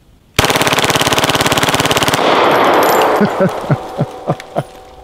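A 9mm Glock 17 converted to full auto firing one long continuous burst of nearly two seconds, the shots packed into a fast, even rattle. The burst's echo rolls off across the range, followed by a few short knocks.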